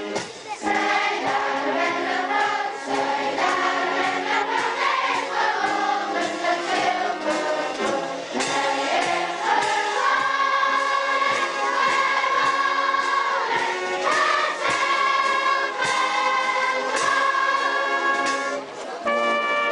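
Background music: a choir singing in long held notes. Near the end it breaks off briefly and a different piece begins.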